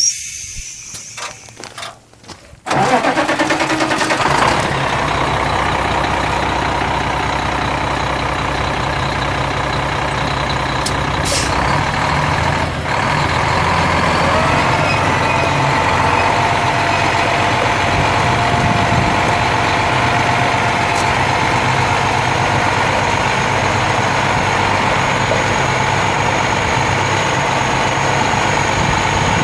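Cummins ISM 10.8-litre inline-six turbo diesel in an International 8600 semi truck cranking unevenly for a couple of seconds, catching suddenly, then idling steadily.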